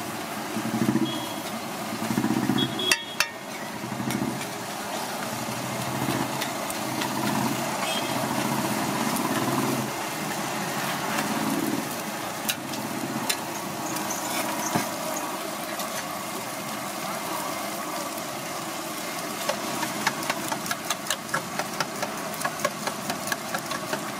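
Frying on a large flat iron tawa: a metal spatula scraping and tapping the griddle while the food sizzles, with a quick run of sharp spatula taps near the end. A low mechanical rumble runs underneath.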